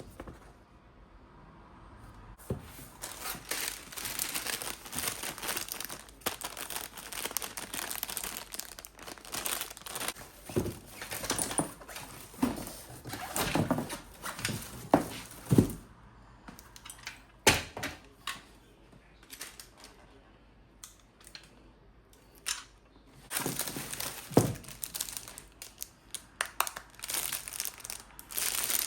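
Irregular crinkling and rustling, as of plastic or paper being handled, with a few sharp knocks and a quieter lull about two-thirds of the way through.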